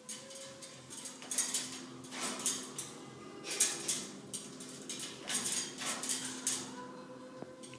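Cockatoo rapidly tapping its beak against a hard surface in clattering bursts about a second apart, like a typewriter. It is an agitated bird's display.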